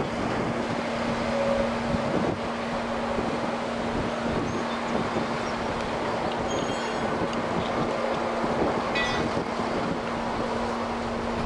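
Wind buffeting the microphone, with a steady low hum underneath and a brief high clink about nine seconds in.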